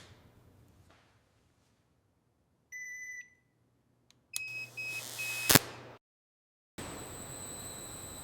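A short electronic beep. A few seconds later comes a low hum with three quick high beeps and a sharp click. After a brief silence, a steady hiss with a thin high whine sets in.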